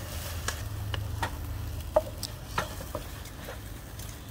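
Stir-frying: a wooden spatula scrapes and knocks against a nonstick frying pan, with a few irregular clicks over a faint sizzle from the shrimp and sauce. A low steady hum runs underneath.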